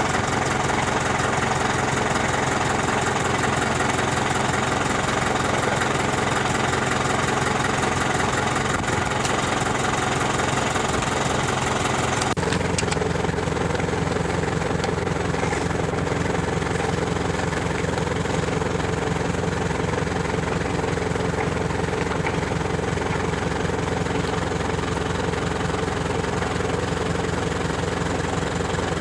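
An engine running steadily, its pitch changing abruptly about twelve seconds in and then holding steady again.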